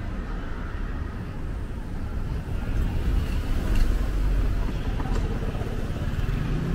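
A minivan driving slowly past close by, a low engine and tyre rumble that swells and is loudest about four seconds in.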